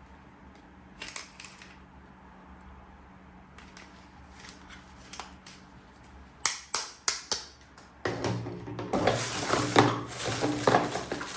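Plastic toy parts and packaging being handled: a few scattered clicks, then a run of sharp plastic clicks, then close, dense crinkling and rustling in the last few seconds.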